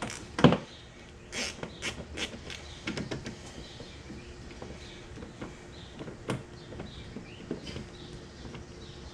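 Scattered knocks, clicks and rattles of hands and tools working on the side-by-side, the loudest a thump about half a second in, with a quick run of clicks between about one and a half and three seconds. Faint bird chirps in the background later on.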